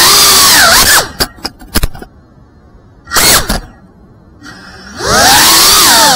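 5-inch FPV quadcopter's brushless motors and propellers whining, the pitch sliding up and down with the throttle. About a second in the throttle is cut and the motors fall much quieter for several seconds, broken only by short throttle blips, as in a dive or flip; near the end the whine rises again as full throttle returns.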